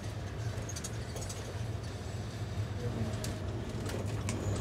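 Steady engine and road noise inside a Volkswagen van's cabin while it drives along: a low, even hum under a hiss.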